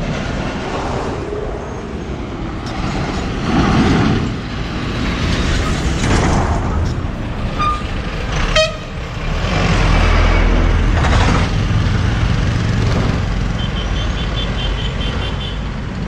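Heavy trucks and buses passing close by, with engine and tyre noise; the loudest is a deep engine rumble swelling about ten seconds in as a truck goes past. Short horn toots sound among the traffic.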